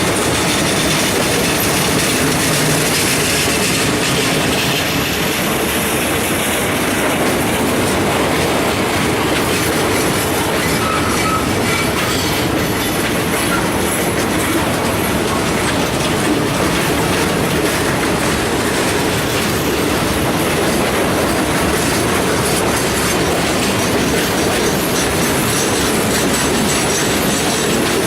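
Freight train cars rolling steadily past, loud and continuous, wheels clacking over the rails with some wheel squeal.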